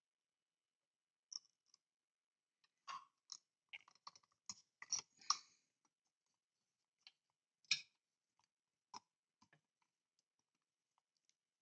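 Faint, scattered small clicks and taps of a model car wheel and small screwdriver being worked as the wheel is screwed onto the model's chassis, busiest about three to five seconds in, with a sharper tap near eight seconds.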